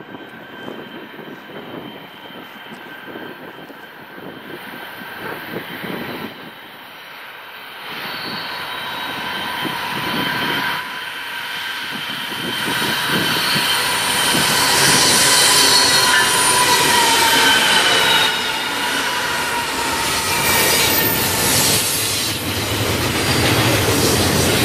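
BNSF double-stack container train approaching and passing, its diesel locomotive and wheels on the rails growing steadily louder. A steady high-pitched wheel squeal sounds throughout.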